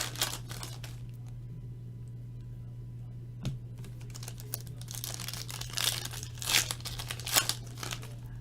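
Trading card pack wrappers and cards being handled: crinkling and tearing in short bursts, with one sharp click about three and a half seconds in.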